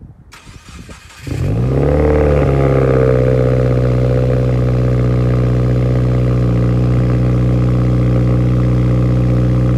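2018 Subaru WRX's turbocharged flat-four engine starting about a second in, its revs flaring up briefly and then settling into a steady idle.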